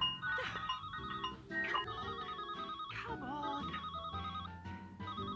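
Cartoon telephone ringing in repeated short bursts of a fast electronic trill, over light background music.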